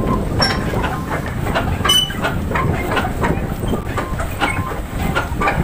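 Pedal boat underway: its pedal crank and paddle-wheel mechanism clacking in a steady rhythm of about three knocks a second over a continuous low rumble of churning water.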